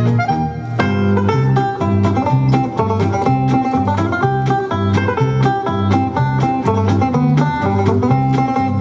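Recorded country-style dance music for a mixer folk dance, with plucked strings over a steady beat and an alternating bass line. The music dips briefly just after the start, and a new phrase picks up about a second in.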